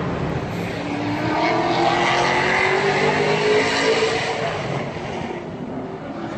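Race car engine accelerating hard, its pitch climbing steadily for a few seconds, then easing off and getting quieter near the end.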